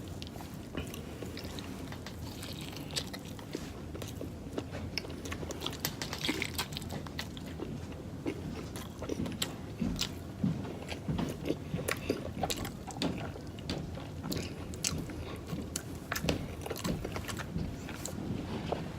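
A person chewing and biting food close to the microphone: a steady run of irregular wet smacks and small clicks over a low hum.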